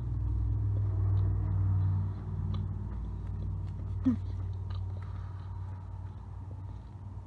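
A person chewing a mouthful of soft cake, with a low closed-mouth hum in the first two seconds and small wet mouth clicks, over a steady low rumble.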